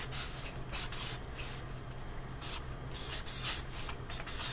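Marker pen writing on paper: a string of short scratchy strokes, several a second, as the letters are drawn.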